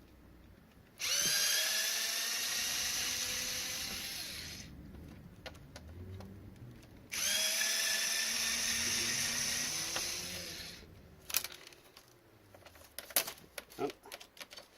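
Power drill-driver running in two bursts of about three to four seconds each, spinning up quickly at the start of each, while backing screws out of electronics for scrap. Then a run of sharp clicks and taps near the end.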